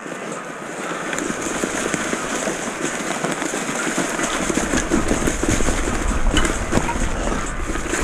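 Mountain bike tyres rolling fast over dry cut brush and twigs, with a constant crackle of snapping stems. From about halfway a low rumble of wind on the microphone builds as the bike gathers speed, and the whole sound grows louder.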